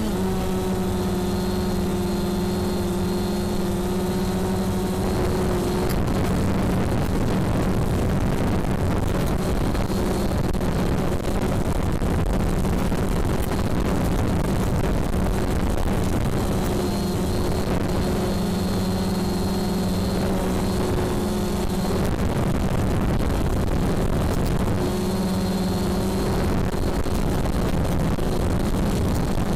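Drone's motors and propellers humming steadily, heard through the drone's own onboard camera, over a rushing noise of air. The steady hum sinks into the rushing from about five seconds in and comes back clearly twice later.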